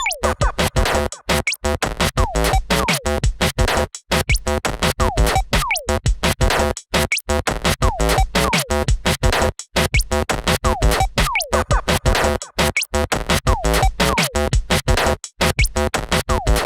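Electronic background music, choppy and stop-start, with many short breaks and quick falling pitch glides.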